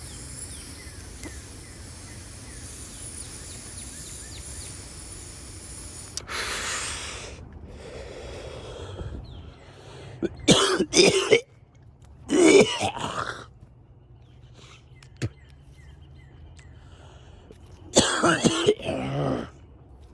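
A man coughing hard in three bouts, about ten, twelve and eighteen seconds in, after a breathy exhale about six seconds in; the coughing follows a hit from a disposable nicotine vape. Faint bird chirps in the background during the first six seconds.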